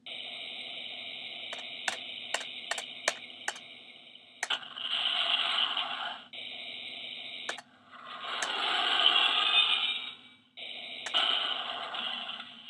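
Toy Iron Man helmet's small built-in speaker playing an electronic sound effect after its 'local reactor is overloading' line: a steady, buzzy alarm tone, broken by a quick run of sharp clicks, then two louder rushing swells of noise about five and nine seconds in.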